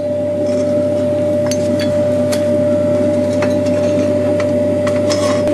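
A steady machine hum with one constant tone runs throughout. A few faint metallic clicks come from the red-hot steel crankshaft blank and lever shifting in the bending jig.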